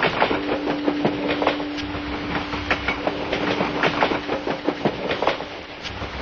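Train sound effect of a moving train: many irregular clicks and clatters of wheels over the rails, with a steady low tone held for about four seconds.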